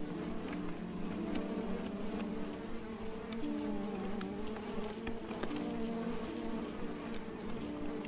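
Honeybees swarming around an opened top bar hive, making a steady droning buzz of many overlapping wavering tones, with a few light clicks.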